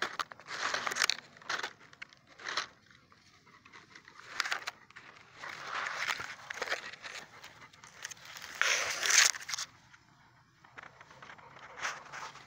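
A dog sniffing and nosing at an opossum in dry leaves and palm fronds: irregular bursts of rustling and snuffling, the loudest about nine seconds in.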